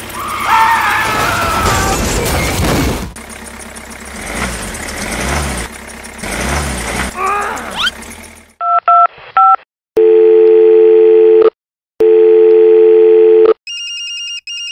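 An engine running for the first eight seconds or so, then a telephone call: three short dialing beeps, two long low ringing tones, and a higher electronic ring near the end.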